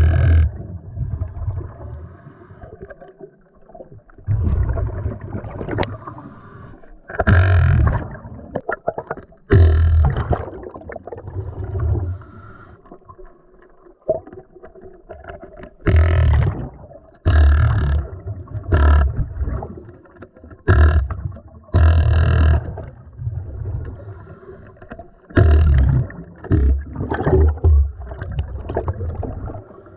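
Scuba air bubbling out underwater in repeated short bursts, each about a second long, from pneumatic tools run off a diver's regulator hose and from the regulator's exhaust, with quieter gurgling between bursts.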